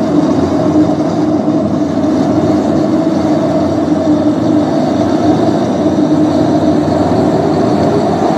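Strong storm wind buffeting a phone's microphone over heavy surf breaking on rocks, with a steady low howl held throughout.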